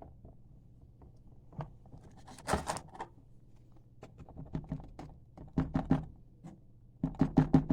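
Scattered light knocks and taps, with a brief scraping rustle about two and a half seconds in; near the end a quick run of regular taps begins.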